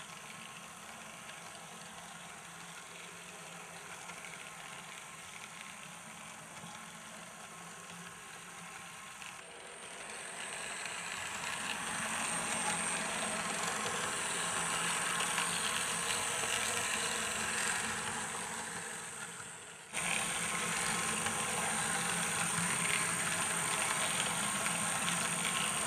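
Märklin H0 model electric locomotive running on the track: motor and wheel noise, faint at first, grows louder about ten seconds in and fades off, then after an abrupt jump about twenty seconds in runs on steadily. A thin high-pitched whine sits over the louder parts, the model's running noise being quiet apart from a light chirp.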